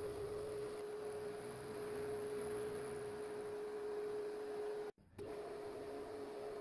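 Milling machine's end mill cutting an aluminium block: a steady humming tone over a hiss of cutting noise, which drops out for a moment about five seconds in.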